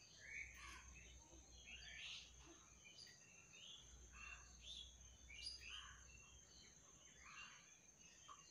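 Faint birdsong from several birds: many short chirps and whistles that rise and fall, scattered irregularly, over a thin steady high-pitched tone.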